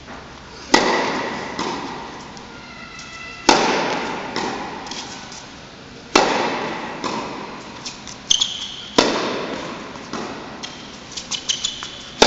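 Tennis racket striking the ball on serves, four loud cracks about two and a half seconds apart, each ringing out in the echo of a large indoor tennis hall, with smaller ball bounces between them.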